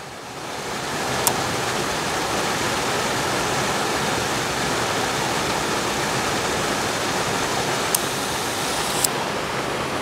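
Waterfall rushing steadily, swelling up in the first second. A few sharp, light clicks sound over it, one early on and two near the end.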